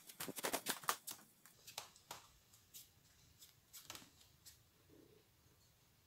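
Footsteps on wooden floorboards, heard as a quick run of faint sharp taps and clicks for the first second and a half, then a few scattered single taps.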